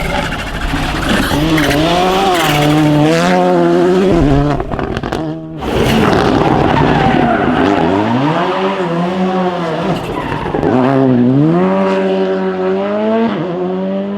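Rally car engine revving hard and changing gear, its pitch climbing and dropping several times, with tyre and skidding noise under it. There is a short break about five and a half seconds in.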